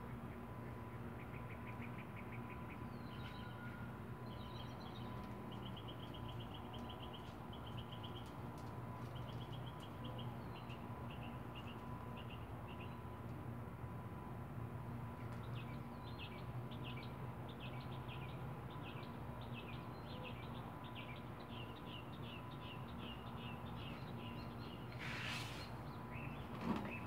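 Small birds chirping in quick repeated series over a steady low hum, with a brief louder rustling noise near the end.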